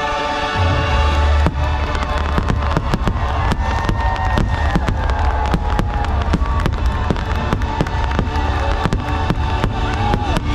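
Aerial fireworks going off in a dense barrage: many sharp bangs and crackles, with a heavy low rumble that starts about half a second in, over the show's music.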